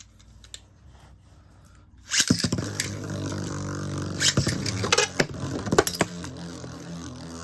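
Two metal Beyblade tops are launched into a stadium about two seconds in. They whir as they spin, with several sharp metal clashes as they hit each other.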